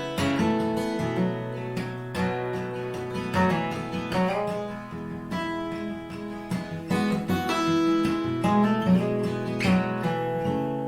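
Acoustic guitar playing a song's introduction, picked and strummed notes ringing over a steady bass note.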